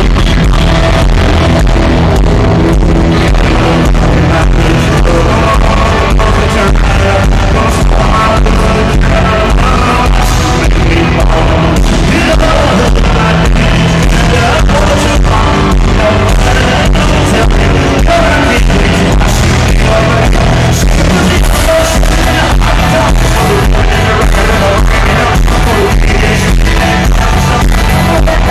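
A live country-rock band with a male lead singer, played very loud through a concert PA, with a steady drum beat.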